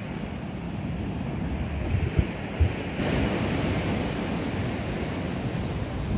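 Sea waves breaking and washing, with wind buffeting the microphone in low thumps. The wash swells louder and brighter about halfway through.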